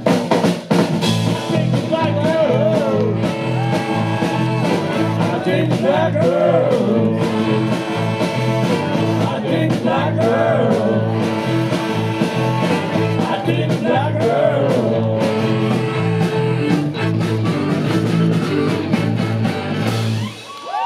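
Live band music: fiddle, electric bass guitar and drums playing together, with the fiddle's bending melody over a steady pulsing bass line. The music stops abruptly near the end.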